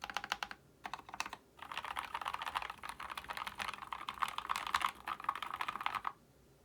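Mechanical keyboard typing on lubed and filmed Gateron Yellow linear switches with OEM-profile PBT keycaps, in a plateless, 3D-printed case with a neoprene layer under the PCB. Two short bursts of keystrokes, then a run of fast continuous typing that stops about six seconds in.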